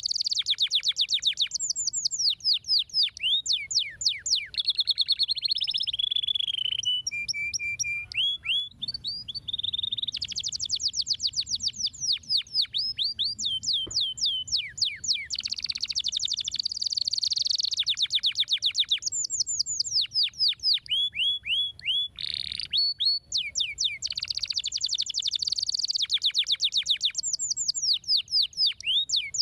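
Domestic canary singing a long, high-pitched song of rapid trills and fast repeated sweeping notes, phrase after phrase with brief pauses, with a few held whistled notes about seven seconds in.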